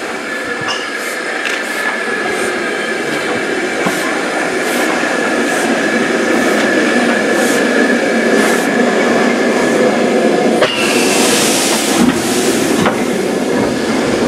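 Great Northern Railway N2 class 0-6-2T steam tank engine passing slowly close by, with steady running noise and regular knocks about once a second. About two-thirds of the way through, a loud burst of steam hiss lasts a second or so.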